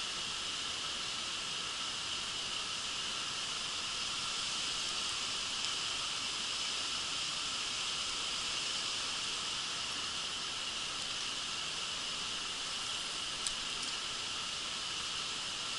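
Steady hiss of a shallow creek running over stones, with one short click near the end.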